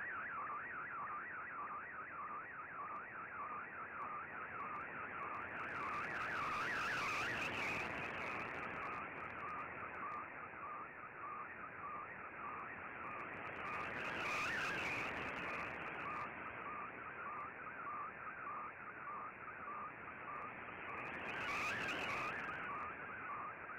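Fldigi MFSK picture transmission from a shortwave broadcast, heard through an Icom IC-R8600 receiver: a rapidly warbling, ever-shifting tone as the colour image's scan lines come in. A hiss swells up three times over it.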